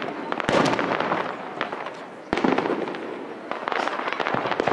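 Aerial fireworks shells bursting: two sharp bangs, about half a second and two and a half seconds in, each followed by a spray of crackling pops that echo away, with more crackling near the end.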